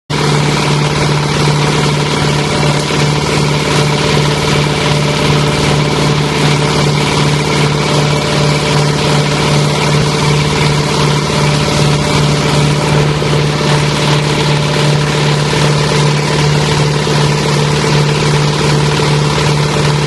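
Wood chipper's single-cylinder diesel engine running at a steady speed, a loud constant hum that does not change.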